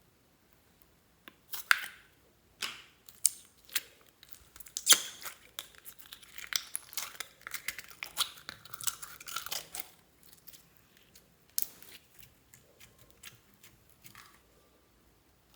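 Slime being squished, stretched and kneaded by hand, with irregular sticky pops, clicks and crackles. They are thickest in the middle and thin out near the end.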